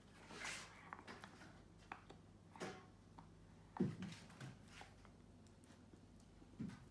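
Dog gnawing a deer antler: faint, irregular scraping and clicking of teeth on antler, with a louder knock a little under four seconds in.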